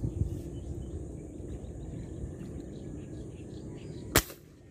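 Wind buffeting the microphone as a steady low rumble, with faint chirping in the background, and a single sharp click about four seconds in, after which the rumble drops away.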